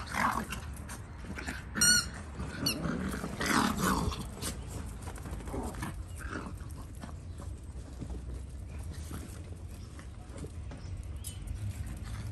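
Yorkshire terrier puppies and dogs yipping and scuffling in a play-fight. There is a sharp high-pitched yelp about two seconds in, a shorter one just after, and a louder outburst about three and a half seconds in.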